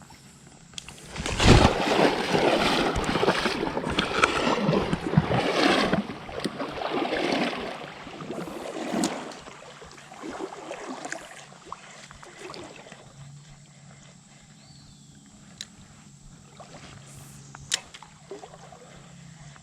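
Water splashing and sloshing, loudest for several seconds starting about a second in, then dying down to a quieter trickle broken by a few sharp clicks.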